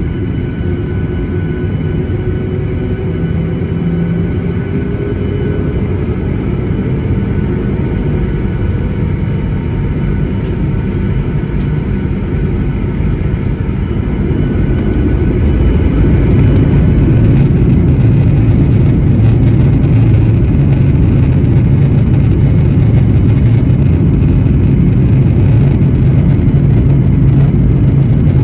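Airliner cabin noise by the wing as the jet taxis onto the runway: steady engine hum with a faint rising whine in the first few seconds. It grows louder about halfway through as engine thrust comes up.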